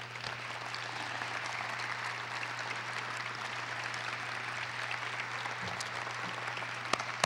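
Audience in a large hall applauding, a steady spread of clapping that holds at an even level, with a sharp click near the end.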